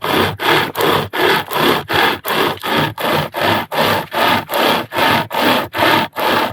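Hand saw cutting through wood in quick, even strokes, about three a second.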